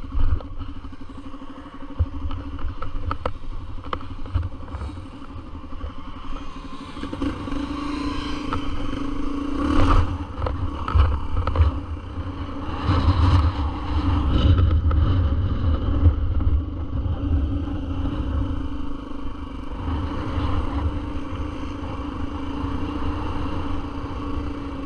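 Dirt bike engine running as the bike is ridden along a trail, steady at first and pulling harder and louder from about a quarter of the way in, with scattered knocks and clatter.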